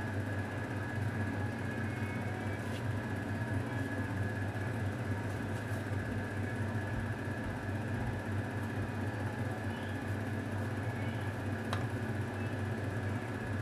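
A steady mechanical hum with a thin high whine running through it, and a couple of faint clicks.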